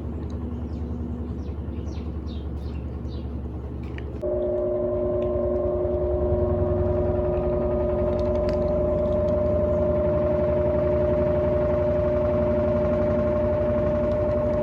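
Electrolux LAC16 top-loading washing machine in its spin, driven by a WEG 1/4 hp motor taken from an LT13B: a low hum, then about four seconds in the motor cuts in and a loud, steady whine holds.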